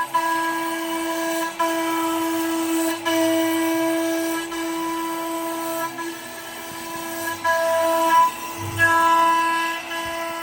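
Sienci AltMill CNC router's spindle whining steadily at about 20,000 rpm as a 22 mm surfacing bit cuts across the workpiece in zigzag passes; the pitched whine wavers and dips briefly every second or two.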